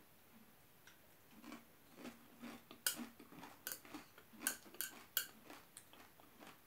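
Metal chopsticks clicking and tapping against a plastic food container while food is picked up, a handful of short sharp clicks, most of them in the middle of the stretch.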